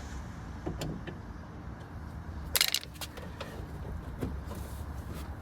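Small clicks and knocks of hand work on a car door's window glass and its clamps, with one sharp metallic clank about two and a half seconds in, over a steady low hum.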